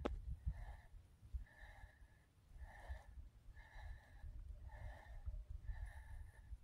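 Wind rumbling on the microphone, with a faint soft sound that repeats about once a second.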